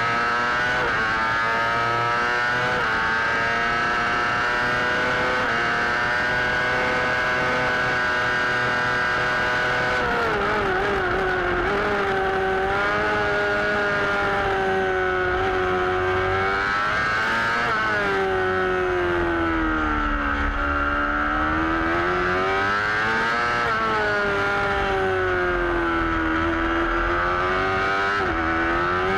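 Suzuki GSX-R600 sportbike's inline-four engine at racing revs. The revs drop sharply a little after ten seconds in and most deeply about twenty seconds in, then climb again as it accelerates, with one more short dip near the end.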